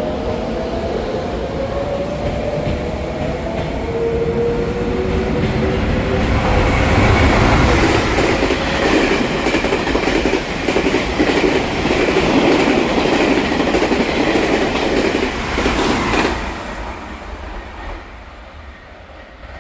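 Electric trains passing through a station: steady motor tones falling in pitch at the start, then a loud stretch of wheels clattering over the rail-joint fishplates for about ten seconds, fading away near the end.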